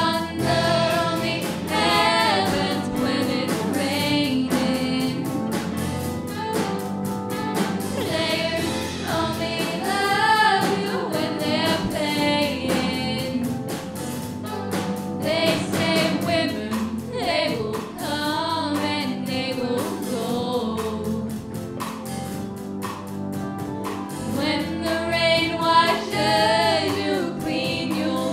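A pop-rock band playing a song, with two singers' voices over electric guitar, bass, keyboards and a drum kit keeping a steady beat.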